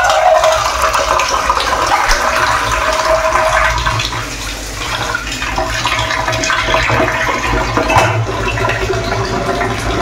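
Water running steadily from a wall-mounted kitchen mixer tap, its hot side opened, splashing into the sink.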